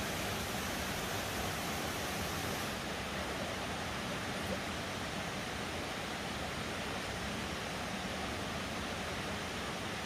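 Mountain stream rushing over rocks, a steady, even rush of water.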